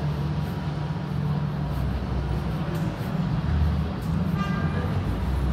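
City street traffic noise, with car engines running as a steady low hum. A brief high tone sounds about four and a half seconds in.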